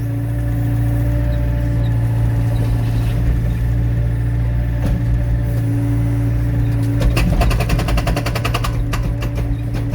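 Excavator diesel engine running steadily. About seven seconds in, the hydraulic breaker hammers rapidly, about ten blows a second, for roughly two seconds, with a few more blows near the end.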